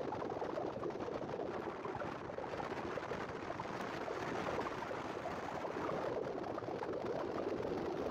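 Wind rushing over the microphone and the road noise of a van driving along, heard at its open side window: a steady rushing noise with no clear engine note.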